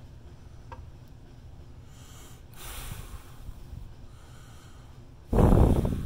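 A person's breath: a soft breath about two and a half seconds in, then a short, loud burst of breath near the end.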